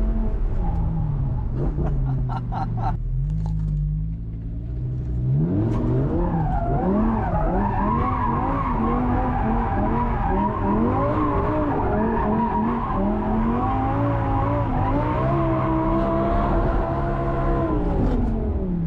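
Audi R8's 5.2-litre V10 through a valved exhaust, revving hard and unevenly with tyre squeal as the car is driven in donuts. The revs drop about a second in and sit low for a few seconds. They climb sharply about five seconds in, then swing up and down until they fall away near the end.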